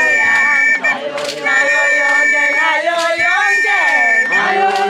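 A group of Swazi women singing together in unison, holding long high notes that fall away at the end of each phrase, in a traditional chant-like song.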